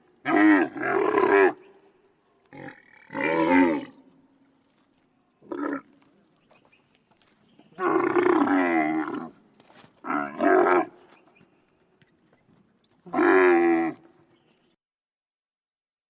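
Composite European elk creature sound effect made from moose, bull and camel recordings: a string of about seven deep, pitched calls. Each call lasts from a brief grunt to about a second and a half, and the pitch bends within each call. Short silences separate the calls.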